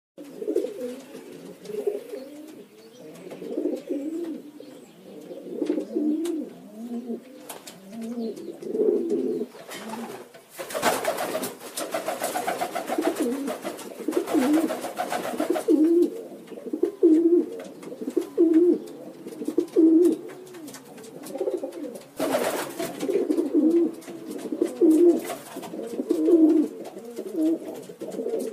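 Domestic pigeons cooing over and over, several birds overlapping. Two bursts of loud rustling noise break in, one about ten seconds in lasting several seconds and a short one near twenty-two seconds.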